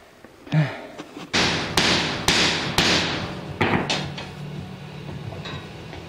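Hammer blows on the vise-crushed end of a pipe, flattening it: about half a dozen sharp strikes starting just over a second in, the heaviest in the middle, tapering off by about four seconds in.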